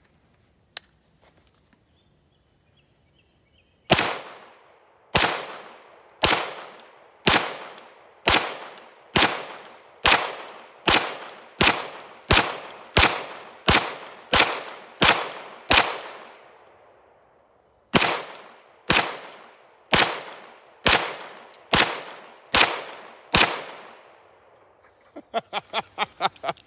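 Short-barrelled 9mm CZ Scorpion pistol firing about twenty-two single shots in semi-automatic. The shots come about one a second, then quicker, pause for about two seconds, and go on for seven more. Each shot echoes briefly.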